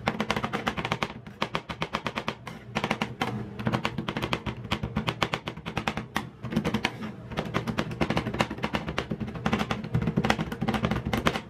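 Steel spatulas chopping and scraping on the metal cold plate of a rolled ice cream pan, breaking Toblerone chocolate into the ice cream base. The clacks are rapid and irregular, several a second, over a steady low hum.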